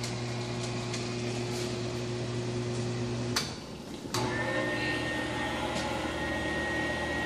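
Kenmore dishwasher running with a steady motor hum. About three seconds in it cuts out with a click for under a second, then starts again with a thin high whine added.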